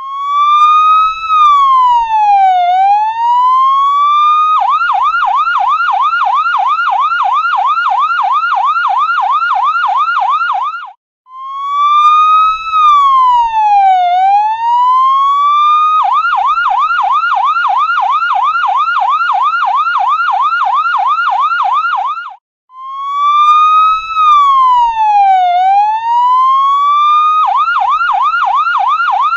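Electronic ambulance siren cycling between a slow swooping wail, which rises, falls and climbs back over a few seconds, and a fast yelp of about four cycles a second. The pattern breaks off for an instant and starts over twice.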